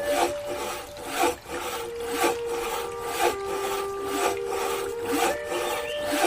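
Background music of held notes that change pitch a couple of times, with a scraping stroke about once a second.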